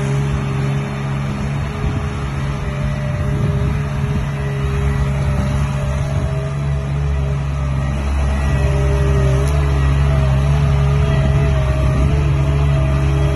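Stand-on mini track loader's 25 hp Perkins diesel engine running steadily, with a wavering whine over it; the low rumble grows heavier about eight seconds in.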